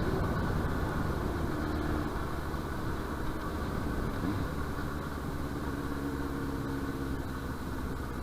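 Yamaha YZF-R1's inline-four engine running steadily at low revs, close to idle.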